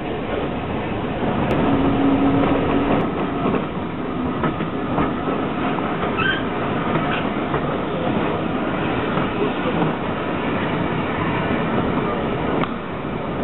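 Heritage steam railway train rolling slowly along the track, heard from on board: a steady rattle with the clatter of wheels over the rails.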